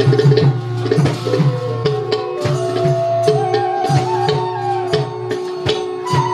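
Live Bhaona accompaniment: a harmonium holding a melody in long steady notes that step up and down, over sharp, irregular drum and cymbal strokes.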